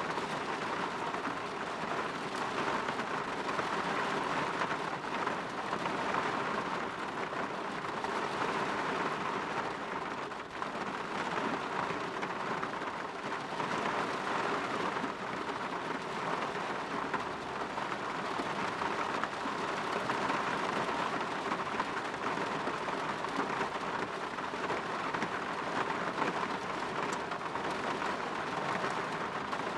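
Steady rain falling on a window: an even hiss of rainfall that swells and eases slightly.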